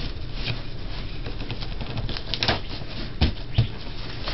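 Large cardboard box being handled and shifted, with rustling and a few sharp taps and knocks in the second half.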